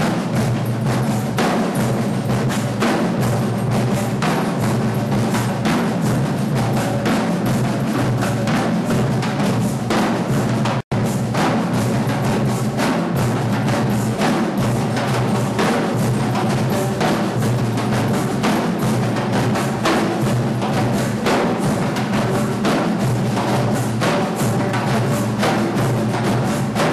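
Percussion ensemble drumming a steady, dense batucada-style rhythm, with deep drums underneath and sharp, woody strokes on top. The sound cuts out for an instant about eleven seconds in.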